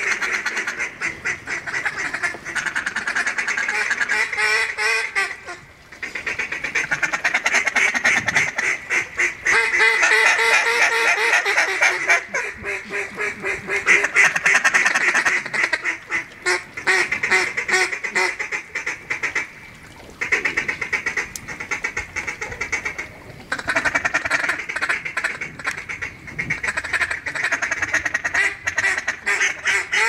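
Rapid duck quacking and chatter in long, fast runs, broken by a few short pauses.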